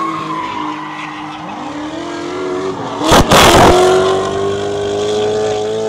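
Drift cars' engines held at high revs while sliding, with tyre squeal. About three seconds in there is a loud rush of noise lasting under a second, then one engine holds a steady high note that creeps slightly upward.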